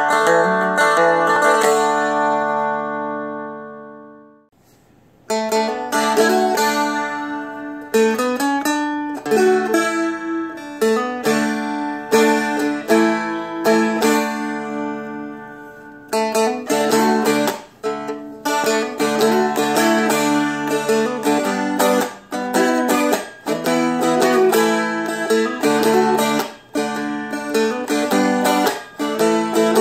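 Seagull Merlin, a small fretted strumstick-style instrument, flatpicked. A strummed chord rings out and fades over the first four seconds. After a short pause, a tune of picked melody notes mixed with strummed chords starts about five seconds in and carries on.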